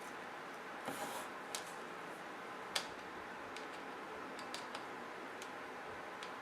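Faint, scattered clicks and taps of small tools and parts being handled while the screws holding a laptop's screen panel are taken out, the sharpest click a little under three seconds in, over a low steady hiss.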